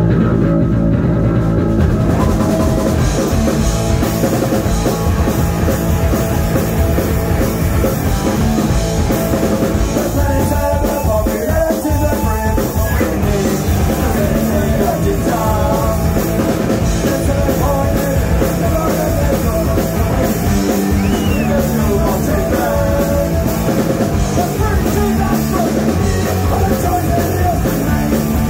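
Punk rock band playing live and loud: electric guitar, bass guitar and drum kit.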